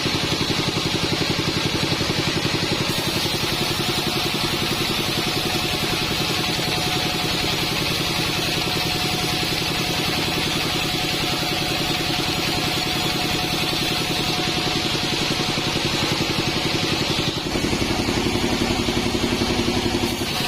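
Modified Bandsaw 48 band sawmill running steadily, a dense, evenly pulsing engine-like drone. About 17 seconds in the sound changes, the higher hiss dropping away and the lower hum growing louder.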